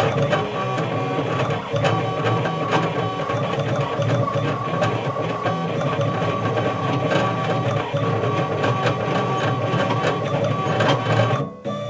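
Engraving machine cutting lettering into a metal knife blade: a steady motor whine under dense, rapid clicking and chatter as the tool moves through the letters. It stops suddenly near the end.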